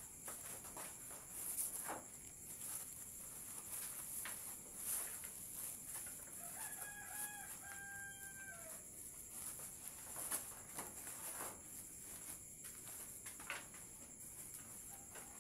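A rooster crows once in the background, a drawn-out two-part call that drops in pitch at the end, about seven seconds in. Scattered light knocks and clicks of baking trays being handled sound around it, over a steady high hiss.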